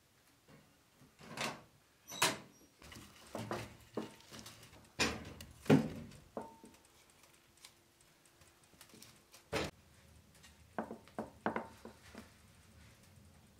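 Split firewood logs being fed into the firebox of a steel wood-burning cook stove, with the metal firebox door clanking: a run of knocks and thuds, the loudest about six seconds in, another thump near ten seconds, and a few lighter clicks near the end.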